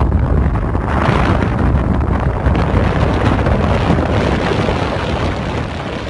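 Wind rushing and buffeting over the microphone through an open window of a moving car, over steady road noise.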